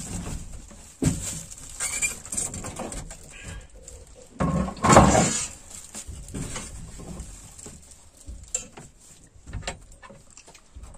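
Scattered knocks and clinks of spoons and dishes as people eat, with a louder, longer clatter about five seconds in.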